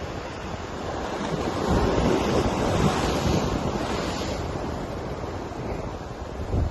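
Ocean waves crashing against rocky shoreline, the surge swelling to a peak about two seconds in and then washing back. Wind buffets the microphone with a low rumble throughout.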